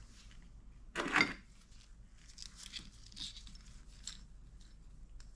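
Hands handling bicycle parts and tools during assembly: a short, loud rattle about a second in, then light clicks and rustling.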